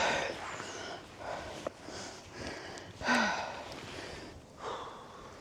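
A person breathing hard, out of breath from climbing steep steps: loud breaths about once a second, with a short voiced grunt about three seconds in.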